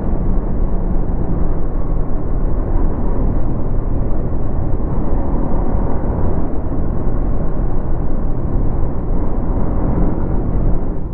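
Yamaha MT-15's single-cylinder engine running through its stock exhaust as the motorcycle is ridden, mixed with road and wind rush. The sound stays steady and loud, with no clear revs up or down.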